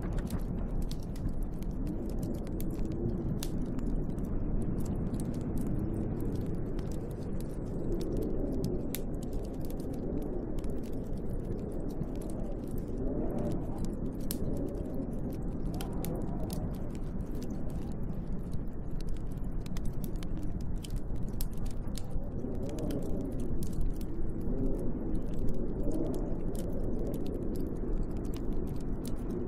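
Storm wind blowing, a low rushing that swells and fades in slow gusts, over a wood fire crackling with frequent small sharp pops.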